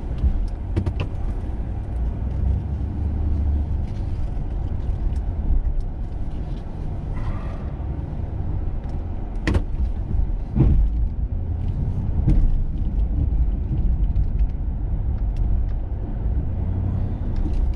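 Plow truck's engine running with a steady low rumble while pushing snow with a SnowDogg VXFII V-blade, with a few sharp knocks near the middle.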